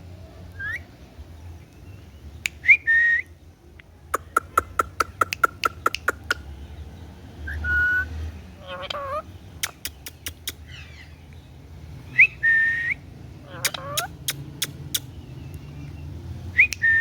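Indian ringneck parrot giving short whistles that rise and then hold high, about five of them. Between the whistles come chattery warbling calls and runs of rapid sharp clicks.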